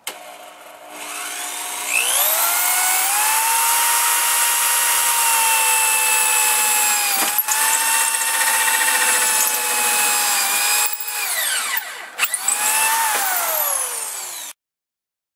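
Electric drill, held in a lever-fed drill press rig, drilling into a round steel pipe. Its motor whine climbs slowly to full speed over the first few seconds and runs steadily with one brief dip. Near the end it stops, restarts briefly, then winds down with a falling whine before cutting off abruptly.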